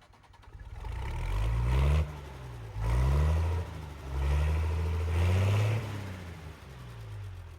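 An engine revving up several times, each rev a rise in pitch, with lower running between the revs.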